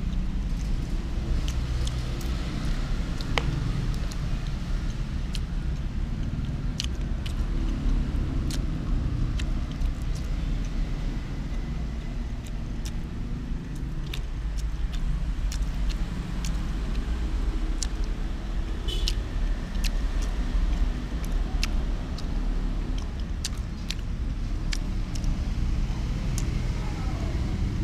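Steady low background rumble, typical of nearby motor traffic, with scattered sharp light clicks from bamboo chopsticks working the rice and wrapping paper.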